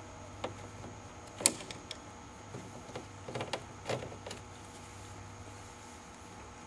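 Open-end wrench on a brass compression fitting being tightened onto flexible stainless steel pipe: a few scattered sharp metallic clicks as the wrench is repositioned and turned, the loudest about a second and a half in, a small cluster around three to four seconds in.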